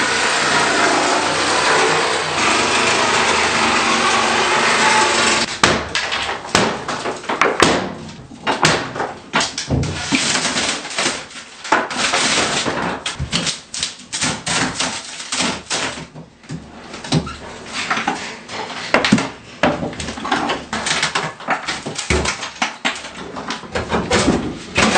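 A power saw cutting through a fiberglass tub-shower surround; about five seconds in it stops, and irregular cracks, knocks and scraping follow as the fiberglass wall panels are pried and pulled away.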